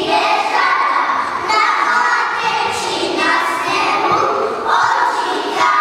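A group of children singing together, echoing in a large church.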